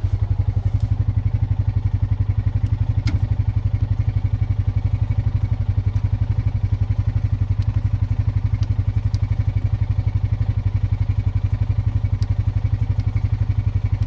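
An engine running steadily at a constant idle, a loud, deep, fast and even throb, with a few faint clicks over it.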